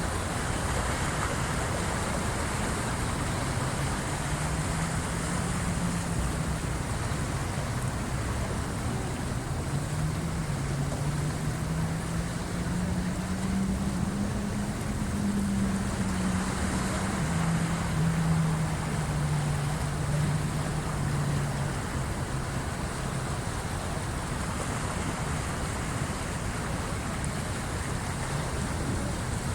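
Incoming tide waves washing in as a steady rush of water. A low engine hum drifts through from a few seconds in, rising and then falling in pitch and fading out about two-thirds of the way through.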